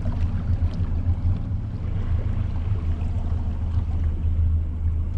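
A boat's engine running steadily at low speed, a constant low hum, under the wash of water and wind on the open ocean.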